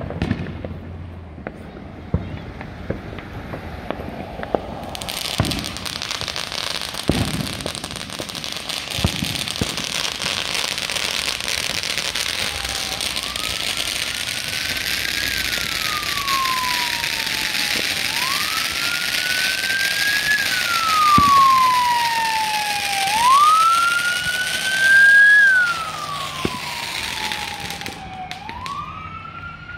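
Scattered firework pops and bangs, with a steady high hiss from about five seconds in that cuts off shortly before the end. From about twelve seconds in, an emergency vehicle's siren wails, rising and falling slowly about every five seconds and growing louder toward the end.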